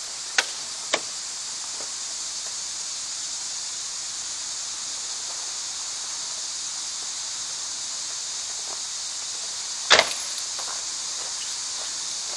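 A steady high-pitched hiss, with two sharp clicks near the start and a louder double click about ten seconds in.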